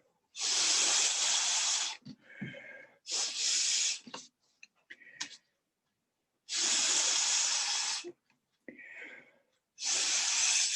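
A person blowing hard on wet paint: four long breaths blown out, each lasting about a second or a little more, with quieter breaths drawn in between.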